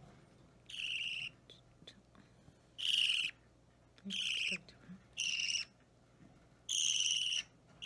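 A budgerigar chick about three weeks old giving five separate begging calls, each about half a second long, while it is being hand-fed.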